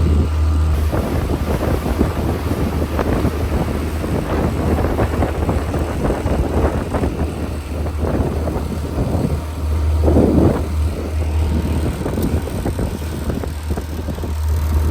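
Motorboat engine droning steadily underway, with wind buffeting the microphone; the drone cuts off suddenly at the very end.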